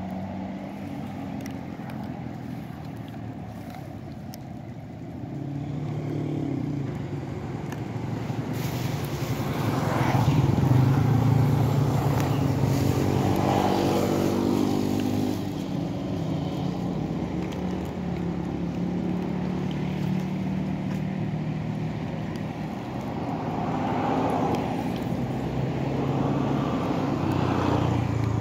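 Motor vehicle engine noise: a steady low hum that swells and fades as traffic passes, loudest about ten to fifteen seconds in and again near the end.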